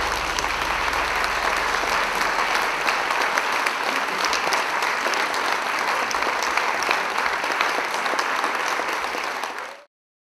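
Theatre audience applauding, dense and steady, the clapping cut off by a fade near the end.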